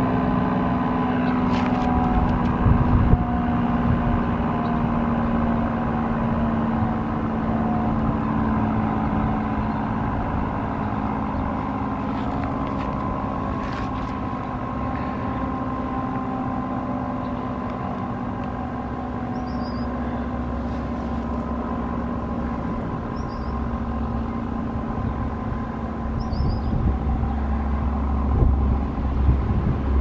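ACA Screamer S-10 outdoor warning siren sounding its steady alert tone, holding pitch and slowly easing in loudness. A bird chirps every few seconds in the second half, and a low rumble rises near the end.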